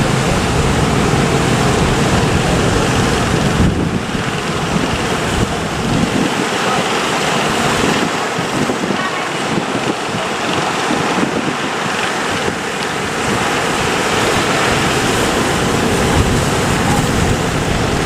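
Surf breaking and washing in a steady loud rush, with wind buffeting the microphone in a low rumble that eases in the middle.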